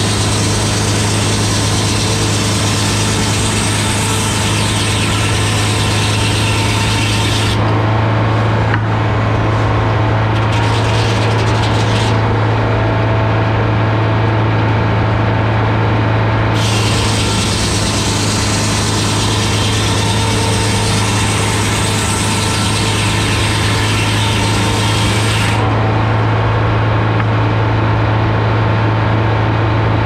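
Frick sawmill's large circular blade ripping oak cants into fence boards, driven by a supercharged GM 4-71 two-stroke diesel running steadily under load. There are two long cuts, the first ending about seven seconds in and the second running from about sixteen to twenty-five seconds in. Between the cuts only the engine and the freewheeling blade are heard.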